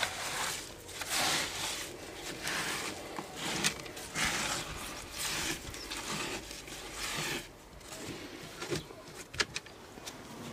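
A gloved hand with a rag wiping and scraping dirt and debris across a fibreglass boat floor, in repeated rough strokes about once a second, with a few small knocks.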